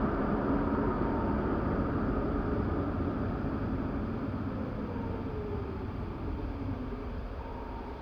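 Road and engine noise inside a moving car's cabin, gradually getting quieter as the car slows down, with a faint whine dropping in pitch in the second half.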